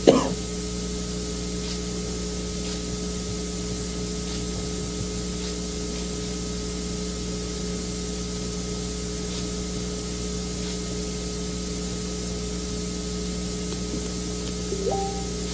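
Steady hiss with a low electrical hum, the recording's own background noise, with no other sound carrying through. A short loud burst right at the start and a brief rising tone near the end.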